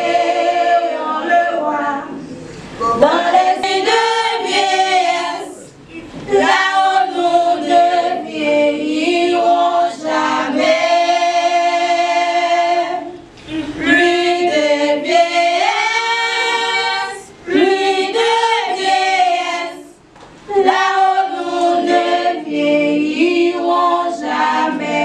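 A group of voices singing a slow French hymn a cappella: long held notes in phrases of a few seconds, with short breaks for breath between them.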